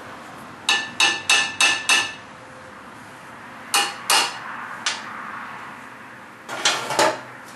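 Hammer striking steel parts with ringing metallic taps: five quick strikes, then two more, then a short flurry near the end. The taps are knocking the pieces into position before they are tack-welded.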